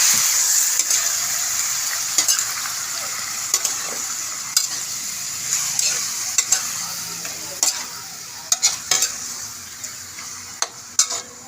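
Raw chicken pieces sizzling in hot oil in a frying pan, loudest at the start and easing off gradually, while a utensil stirs them with scattered clicks and scrapes against the pan.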